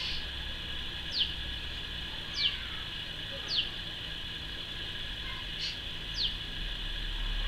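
A small garden songbird calling a thin, high whistle that falls in pitch, repeated about once a second, over a steady high background hiss.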